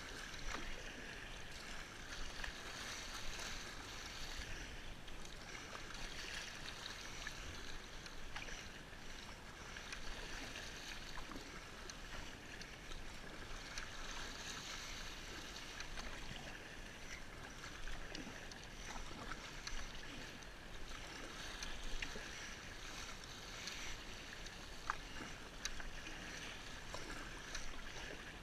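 Water splashing and rushing along a sea kayak's hull as it is paddled through choppy waves, a steady wash that swells and eases every few seconds, with a few faint knocks.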